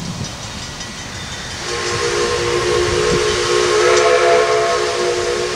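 Steam whistle of a 1923 Montreal Locomotive Works 0-6-0 switcher locomotive blowing one long, steady chord of several tones, starting about two seconds in, after a hiss of escaping steam.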